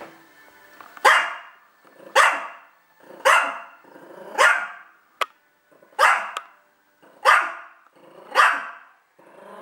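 Yorkshire terrier barking at a cat: seven sharp barks, about one every second or so, each tailing off quickly. A single sharp click falls about halfway through.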